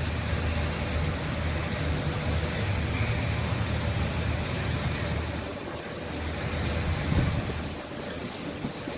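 Steady low rumble of a running vehicle engine, with a hiss over it. It dips slightly about six seconds in.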